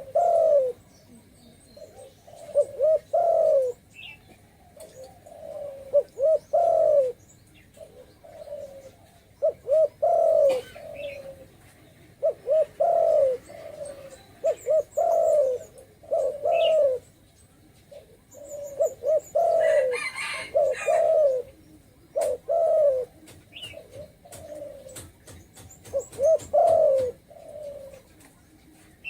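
Spotted dove cooing over and over in deep, multi-note coo phrases, one every two to three seconds. A few short high chirps come in between, and there is a brief burst of noise about twenty seconds in.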